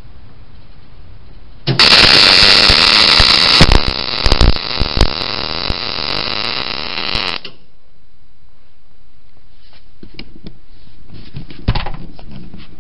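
Wire-feed (MIG) welder arc crackling for about six seconds as the shortened tip of a car trunk hinge is welded back on. It starts suddenly about two seconds in and cuts off just as suddenly. A few light clicks and knocks follow near the end.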